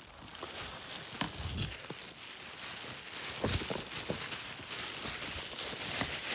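Rustling and crinkling of rice plants and grass being brushed and pushed through, with scattered light clicks and a few soft thumps.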